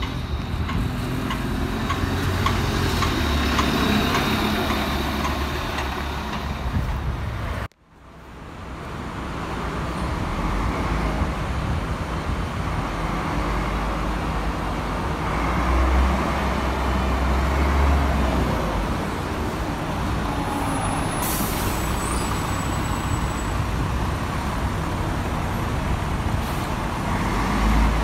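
Diesel-era city buses driving off: an Iveco Urbanway's engine pulling away, then, after a cut, a Cotral Iveco 380 Euroclass engine running as it turns and pulls away, swelling twice. A short hiss sounds about two thirds of the way through.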